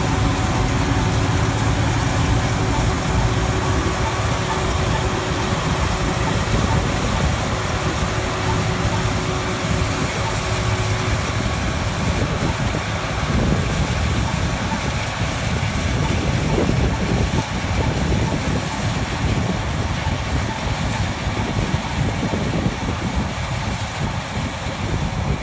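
Claas combine harvester running as it harvests, its engine and threshing machinery giving a steady drone. The engine's hum fades out about halfway through as the machine pulls away. Wind rumbles on the microphone throughout.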